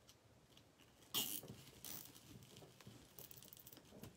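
Plastic deco mesh rustling and crinkling in a few short bursts as hands fluff and arrange the wreath's mesh loops, the loudest about a second in.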